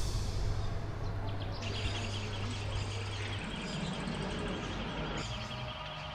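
Street ambience: a steady low vehicle hum with birds chirping over it, the chirping stopping and the hum dropping away about five seconds in.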